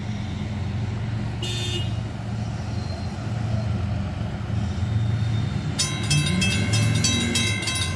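Railroad crossing warning bells start ringing about six seconds in, as rapid metallic strikes of about three to four a second, signalling an approaching train. Under them runs a steady low rumble of idling traffic or the distant locomotive.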